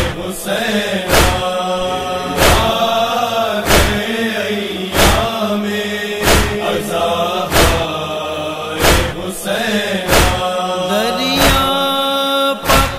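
Voices chanting a noha, a Shia lament for Husain, over a loud regular beat that strikes about every 1.3 seconds. Near the end a single voice takes the lead with gliding, held notes.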